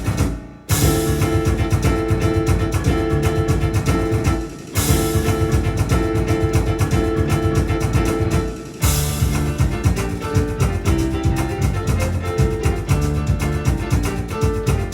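Yamaha Electone electronic organ playing a fast instrumental with a drum-kit rhythm, bass and plucked-string voices. The music breaks off briefly three times, just after the start, about four and a half seconds in and about eight and a half seconds in, each time coming straight back in.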